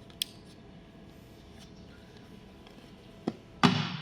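Clicks of switches being worked on the machine: a sharp click, another about three seconds later, then a louder clunk that dies away over about half a second.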